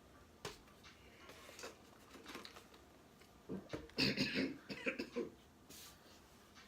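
A person coughing a few times about four seconds in, their mouth burning from a hot pepper. A single faint click comes about half a second in.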